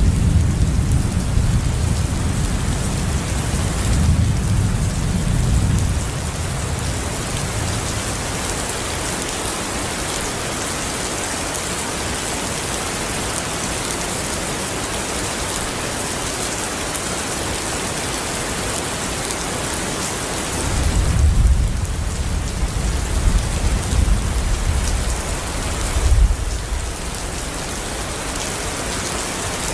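Steady rain falling, an even hiss throughout, with two spells of low rumbling, one at the start and one about two-thirds of the way through.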